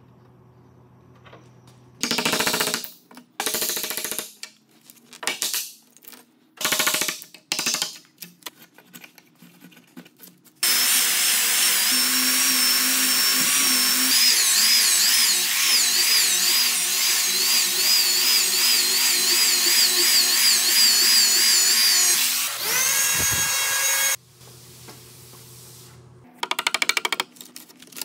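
A two-handled rotary sander runs steadily on a wood slab for about twelve seconds, with a wavering high whine over the rush of sanding, then spins down with a falling tone. Before it come five short rasping bursts as pipe clamps are worked on a glued frame, and a few light clicks follow near the end.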